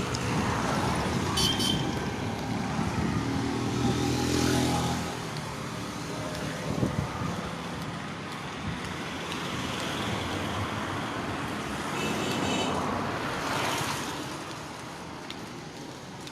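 Road traffic: a motor vehicle's engine hums close by for about the first five seconds, and vehicles rush past twice, about four seconds in and near the end.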